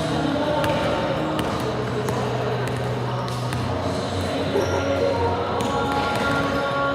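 Basketball bouncing on a hardwood gym court during a game, with a few sharp knocks over a steady background of voices in the gym.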